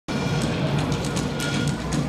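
Routine music for a rhythmic gymnastics ribbon routine, played over the hall's loudspeakers, with a quick beat.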